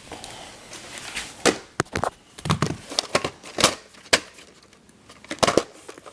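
A VHS tape and its case being handled: irregular sharp clicks and taps with crinkling rustle between them.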